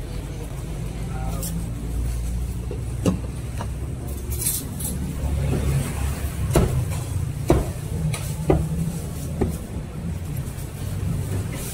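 Meat cleaver chopping a roast bird on a thick wooden chopping block: a series of sharp chops, roughly one a second, starting about three seconds in. Under them runs a steady low rumble of road traffic.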